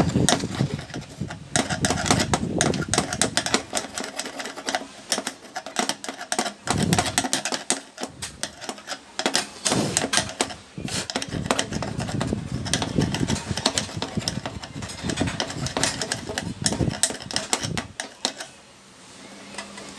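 Hand screwdriver turning screws in a sheet-metal machine housing: a dense run of rapid clicks and metal scraping, with knocks from handling the case.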